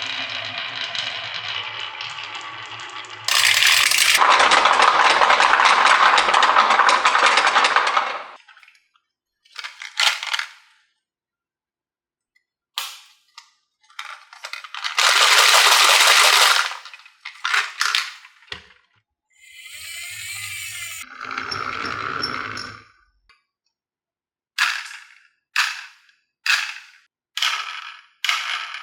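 Marbles rolling and rattling down a wooden HABA marble-run slope: a long, loud rolling run at first, shorter rattling runs after it, and near the end a quick series of sharp clacks as marbles drop and strike the track.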